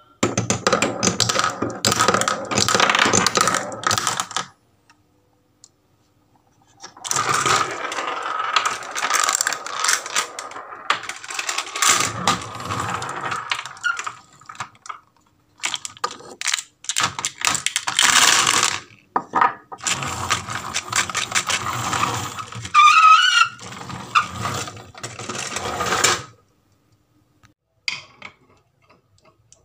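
Glass marbles rolling and clattering down a wooden marble run, with dense rattling and clicking that comes in four long runs separated by short pauses. Only a few faint clicks near the end.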